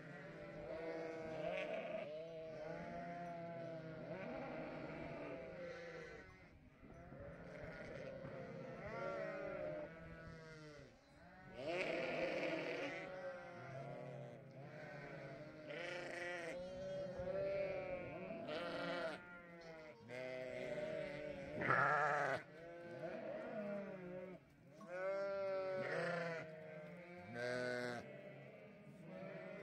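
A flock of ewes and young lambs bleating constantly, many overlapping calls of different pitches, with one louder call about three-quarters of the way through.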